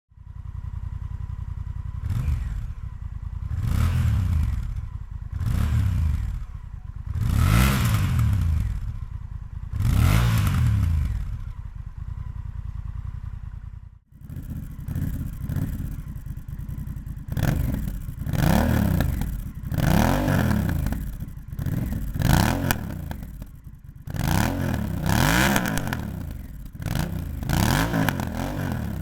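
Honda Rebel 1100's parallel-twin engine idling and being revved in short throttle blips, about five times, on the stock exhaust. About halfway through it cuts to the same bike on the Coffman's Thunder aftermarket exhaust, revved about eight times in quicker succession.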